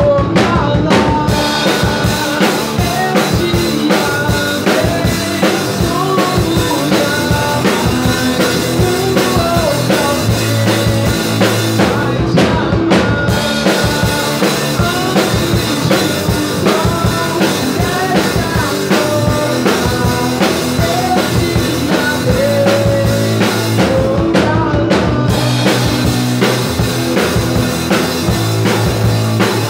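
Rock band playing live at a sound check: drum kit with kick drum and rimshots driving a steady beat under a melody line, with the cymbals dropping out briefly twice.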